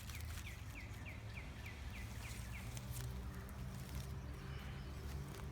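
A bird calling: a quick run of about ten short, falling whistled notes, roughly four a second, that stops about two and a half seconds in, over a low steady rumble.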